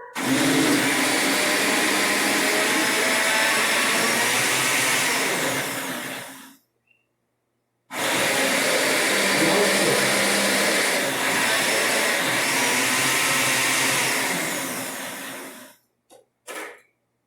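Countertop blender running in two bursts of about six and eight seconds with a short stop between, blending a thick, already emulsified homemade mayonnaise of milk, oil and garlic. Each run tails off as the motor stops.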